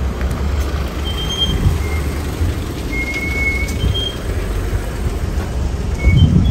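Outdoor car park ambience: a continuous, uneven low rumble of vehicles and wind on the microphone, with a few short high-pitched chirps scattered through and a louder low thump near the end.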